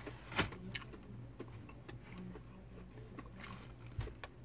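Close-up chewing of crispy fried catfish: soft mouth sounds with scattered sharp crunches and clicks, the loudest about half a second in and a few more near the end, over a steady low hum.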